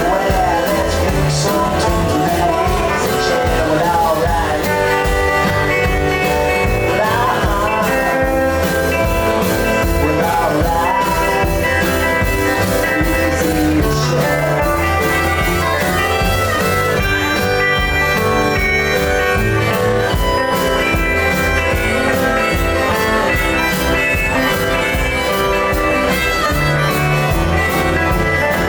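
A small live band playing a blues-rock song, with guitar and a steady beat.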